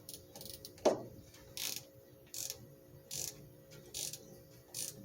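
A 1/2-inch ratcheting wrench clicking in short strokes about every 0.8 s, tightening a battery kill switch onto a car's negative battery terminal. A single sharp knock about a second in.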